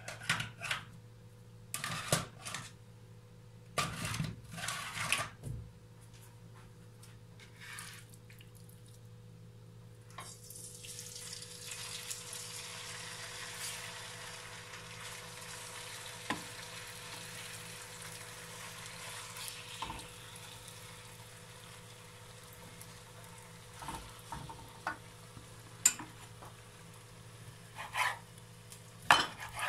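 A few knocks and clatters, then cubes of raw chicken breast start sizzling in hot oil in a frying pan about ten seconds in, a steady hiss through the rest. A few sharp taps come near the end.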